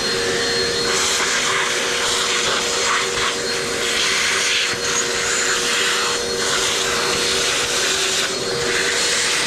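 Vacuum cleaner running loud and steady with a held motor whine, the hiss of its suction rising and falling in patches as it picks up dirt and grit.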